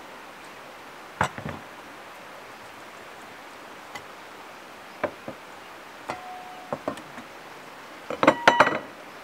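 Plates and a wooden board set down on a wooden table: scattered knocks and clinks, a short ringing note about six seconds in, and a quick run of loud ringing clinks near the end, over a steady rustle of open air.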